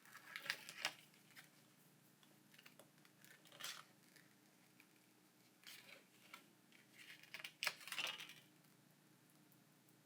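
A few faint scrapes and clicks of a thin metal pry tool and plastic card working under a smartphone's glass back cover to cut through its adhesive, with near silence between; the longest run of scraping comes about eight seconds in.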